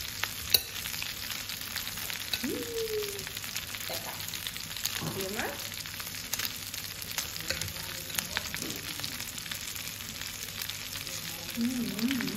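Meatballs sizzling and crackling in hot melted fat in a frying pan, with fine pops throughout. A sharp clink of cutlery on a ceramic plate comes about half a second in.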